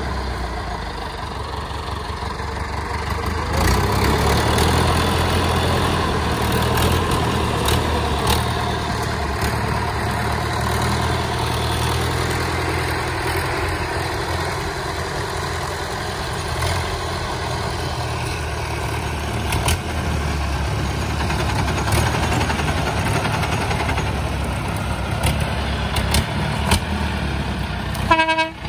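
David Brown 995 tractor's three-cylinder diesel engine running, louder from about three seconds in as the tractor pulls away under load with its trailer. Occasional sharp cracks of branches snapping under the tyres later on, and a brief pitched tone just before the end.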